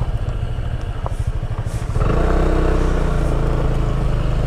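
Motorcycle engine running under way while riding. About two seconds in, its note steps up and gets louder.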